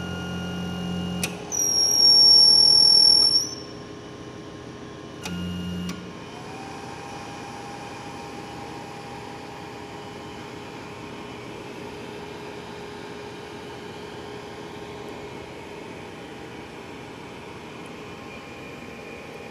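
WDS-720 BGA rework station: a low hum, then a loud, high-pitched electronic beep lasting about two seconds, and a second short hum a few seconds in. About six seconds in, a fan spins up with a slight rising whine and then runs steadily.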